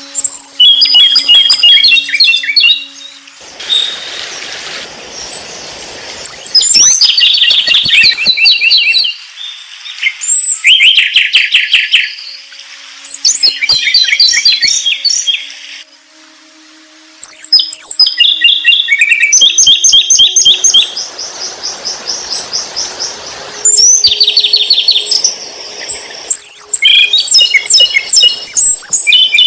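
A songbird singing loudly in long, varied phrases of rapid trills and repeated whistled notes, about seven phrases with short pauses between them.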